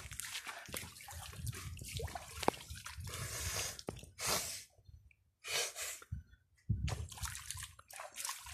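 Shallow water in a spring-fed irrigation channel splashing and sloshing as a man wades in it and works at it with his hands. The sound comes in dense runs of splashes, broken by a couple of short separate splashes with quiet gaps about halfway through.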